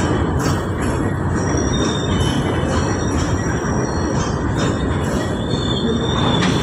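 A long goods train of open-top steel wagons rolling past on the neighbouring track: a steady rumble of wheels on rail, with thin high wheel squeals coming and going.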